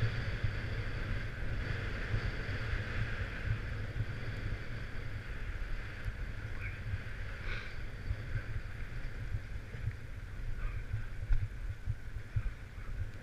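Wind buffeting the camera's microphone during a downhill ski run: a gusty low rumble over the steady hiss of sliding on packed snow, with a few faint scrapes.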